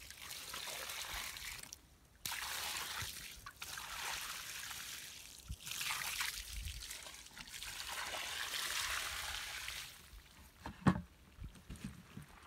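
Water pouring from a collapsible bucket onto the ashes and duff of a campfire to douse it, splashing and trickling with a short break about two seconds in. The pouring stops near the end, and a single sharp knock follows.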